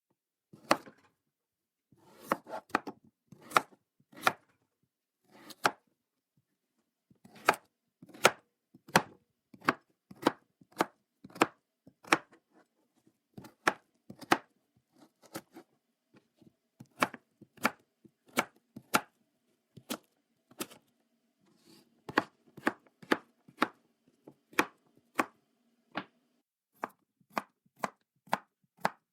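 Knife chopping vegetables on a wooden cutting board: single sharp strikes at an irregular pace, roughly one or two a second, with short pauses between runs.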